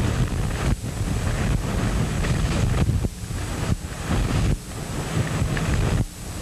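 Gusty wind buffeting the microphone: a heavy, low rumble that eases off briefly several times.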